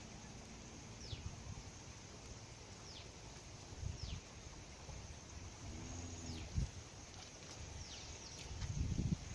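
A bird calling with short, high, falling whistles, repeated about once a second, over faint outdoor background. A few low thumps and a brief low call about six seconds in.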